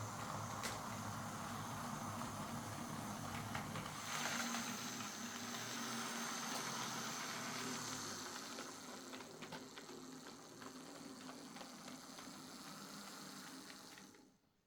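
Lima Class 55 Deltic OO gauge model locomotive running on track after a service, its motor and gears whirring steadily. The sound fades after about eight seconds and cuts out just before the end.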